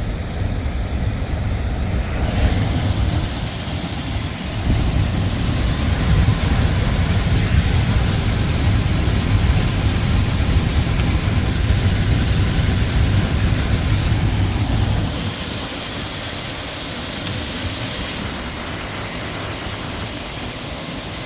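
HVAC air handler running, its blower moving air in a steady rush with a low rumble that eases about fifteen seconds in.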